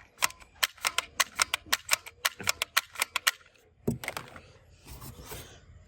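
Toy plastic pistol clicking rapidly, about twenty sharp clicks in a little over three seconds, followed by a single knock and some handling noise.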